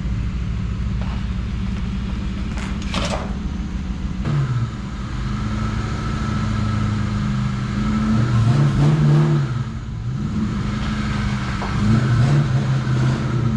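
Ford SN95 Mustang's engine running at low speed as the car is driven in, the revs rising briefly three times with light throttle.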